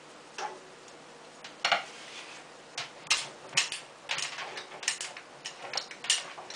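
Rolling pin rolling back and forth over thin semolina dough on a wooden board, knocking against the board in irregular light clacks, about a dozen of them.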